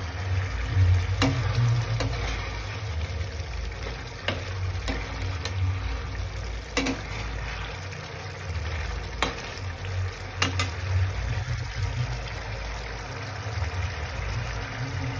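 Chicken curry sizzling in a frying pan while a flat steel spatula stirs it, the spatula clinking and scraping against the pan now and then. A low steady rumble runs underneath.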